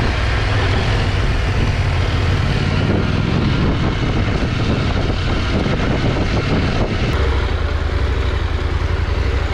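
KTM 890 Adventure R parallel-twin motorcycle running at low speed on a dirt track: a steady engine rumble under wind and tyre noise. About seven seconds in the wind and tyre noise drops away as the bike slows toward a stop, leaving the engine.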